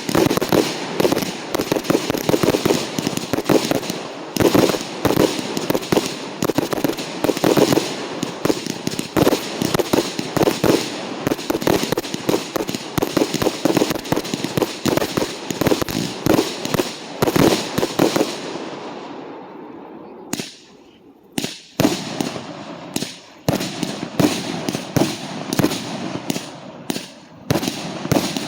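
A dense, rapid barrage of firework salutes (firecracker bangs), dozens of sharp reports overlapping almost without pause. About two-thirds of the way through it dies away to a couple of isolated bangs, then the rapid bangs start again.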